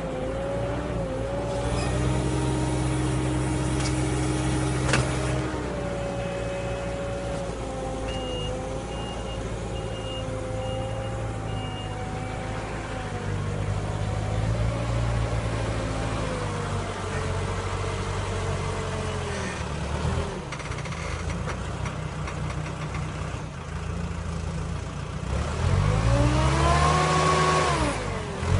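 Diesel engine of a Merlo loader running and changing speed as it maneuvers a tree-shaker harvesting head, with a short run of high warning beeps about a third of the way in. Near the end the engine revs up sharply and drops back.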